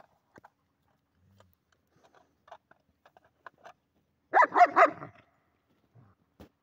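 A dog barking in a quick burst of several barks about four seconds in, with faint scattered clicks before it.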